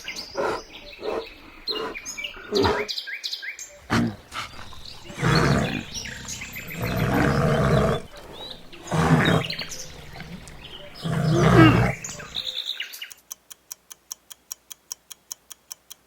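A bear growling in several deep, rough bursts, with birds chirping in the background. Near the end the growls stop and a countdown timer ticks steadily.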